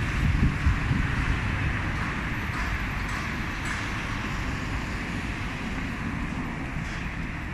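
Steady street traffic noise, with wind buffeting the phone microphone in uneven low rumbles, strongest in the first second or so.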